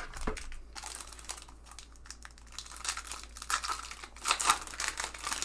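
Foil wrapper of a Topps baseball card pack crinkling and tearing as it is pulled open by hand, with a run of sharp crackles that gets busier in the second half.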